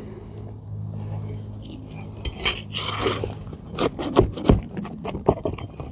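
Metal tool scraping and knocking against asphalt shingles and roofing nails as the nails are pried out: a scrape about three seconds in, then a run of sharp clicks and knocks.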